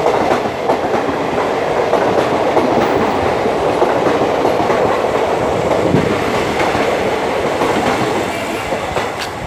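Golgumbaz Express passenger coaches passing at speed, their wheels clattering over the rail joints in a loud, steady rush that eases a little near the end as the last coaches go by.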